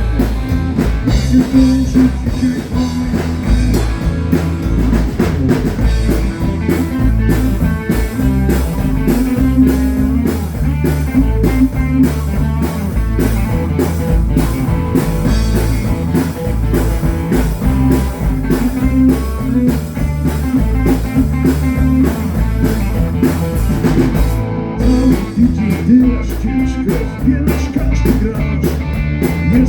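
Live band playing blues-rock, with electric guitar over bass and a drum kit.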